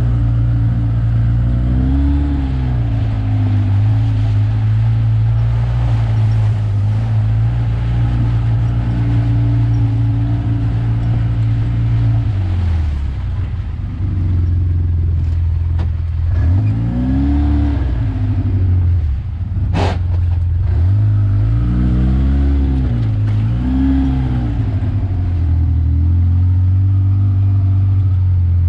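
ATV engine running at low speed over rough trail, its revs dropping and rising several times in the second half as the throttle is worked, with one sharp knock about two-thirds of the way through.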